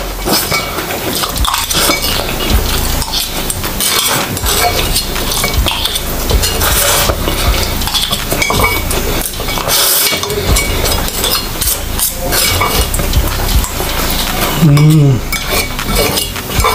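Eating palabok noodles: chewing and slurping, with a metal spoon and fork clinking and scraping on ceramic plates throughout. A short vocal sound comes about fifteen seconds in.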